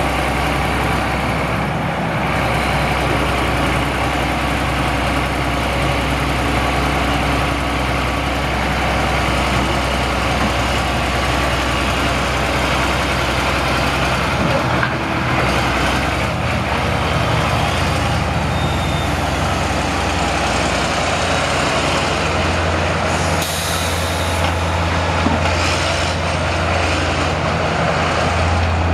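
Six-cylinder turbo diesel engine of a 1999 John Deere 330LC excavator, running steadily. Its low drone shifts higher about halfway through and grows stronger over the last few seconds.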